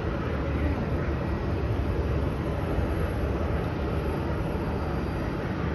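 Steady, low outdoor rumble and hiss picked up on a phone microphone, with no distinct event standing out.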